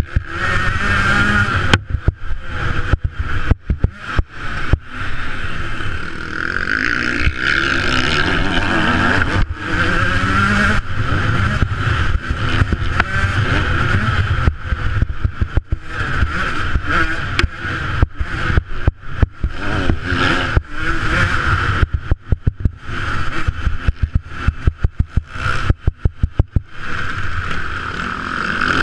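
Motocross bike engine revving up and down as it rides a dirt track, heard through a helmet camera's case with wind noise. The sound keeps cutting out for short moments.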